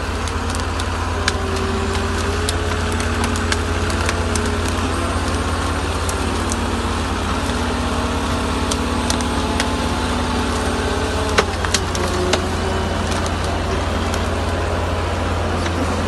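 Ponsse Ergo 8W forestry harvester's diesel engine running steadily under load with a deep, constant rumble and a wavering drive whine, as the bogie wheels work in deep mud. A few sharp cracks of branches snapping under the tyres, the loudest about two-thirds of the way through.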